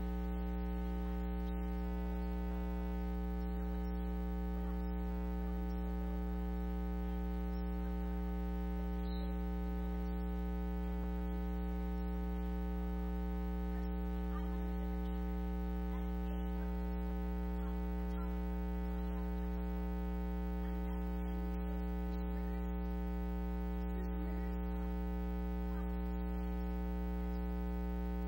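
Steady electrical mains hum with a ladder of overtones, unchanging throughout. It drowns out the person speaking at the microphone, a sign of a fault in the recording's audio feed.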